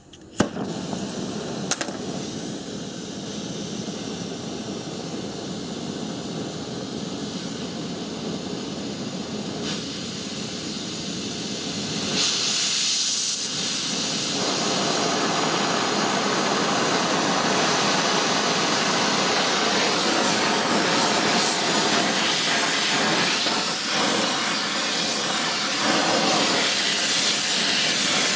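A gas welding torch lights with a sharp pop as a spark striker is held at its nozzle. Its flame then hisses steadily as it heats a steel motorcycle flywheel rotor, and the hiss grows louder about twelve seconds in.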